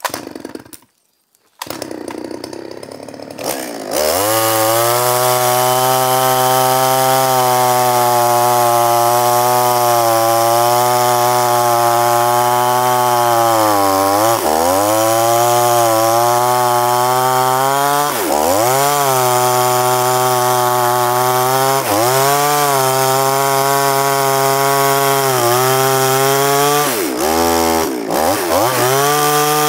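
Two-stroke chainsaw engine. It comes in quieter about two seconds in, then runs at high revs from about four seconds. Its pitch dips and recovers several times.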